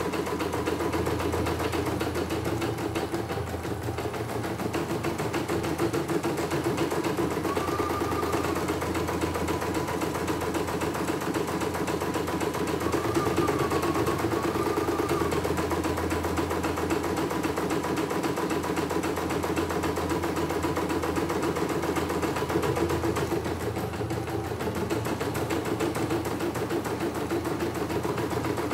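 CNY portable embroidery machine stitching a test design: a steady rapid needle chatter as the hoop carriage steps the fabric under the needle.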